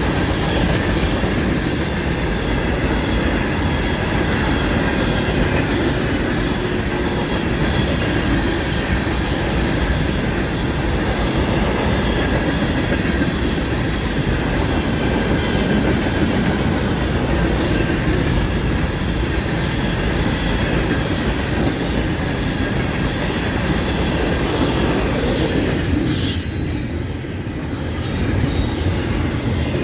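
Florida East Coast freight train's cars rolling past close by: a steady rumble of wheels on rail with a thin, steady wheel squeal over it. The noise dips briefly near the end.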